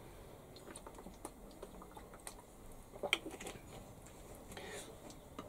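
Faint, scattered clicks and crackles of a plastic water bottle being drunk from and recapped, with a short cluster of clicks about three seconds in.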